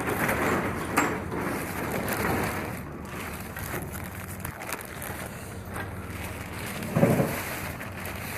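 Steady engine and road noise inside a moving delivery truck's cab, with a click about a second in and a short bump about seven seconds in.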